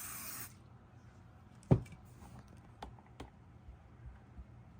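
An aerosol can of hairspray hissing, stopping about half a second in. A sharp knock follows about a second later, then two lighter clicks.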